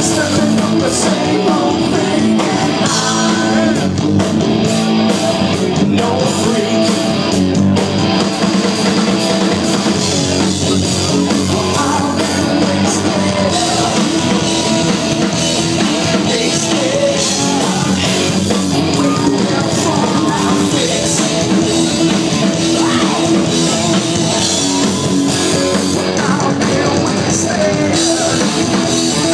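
Live rock band playing loud and without a break: electric guitar, drum kit and a singer.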